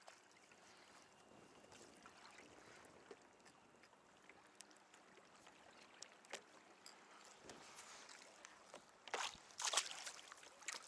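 Faint water lapping and trickling around a kayak, with scattered light clicks of handling. Near the end, two louder short sounds.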